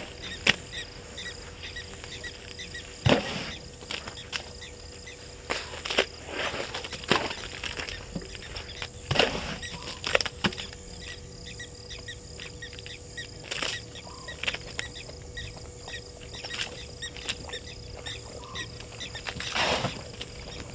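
Night bush sounds: a steady chorus of insects trilling, with a low hum under it. Scattered sharp cracks and crunches sound close by, a dozen or so, the loudest about three seconds in and again near the end.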